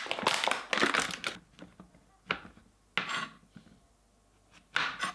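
Plastic mushroom punnet being opened, its film crinkling and tearing for the first second and a half. Then a few separate crunches as a knife cuts through button mushrooms on a plastic cutting board.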